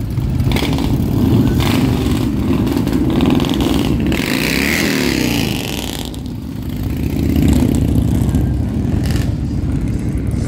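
Harley-Davidson V-twin motorcycle engines running at low street speed, heard from the saddle of one bike in a slow line of bikes. About four seconds in, an engine's pitch rises and falls with a hiss over it, and the sound dips briefly before swelling again.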